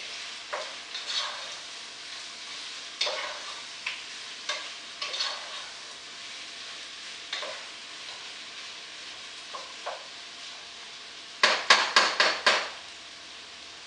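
Sliced potatoes sizzling steadily in goose fat in a pot while being stirred, the utensil scraping against the pot every second or so. Near the end comes a quick run of about six sharp knocks on the pot, the loudest sound here.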